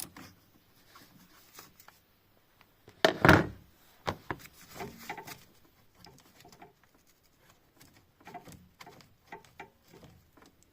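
Hand tools on a small bolt of a plastic coolant reservoir mount. One loud clatter comes about three seconds in, then scattered light clicks and taps as the second 10 mm bolt is undone.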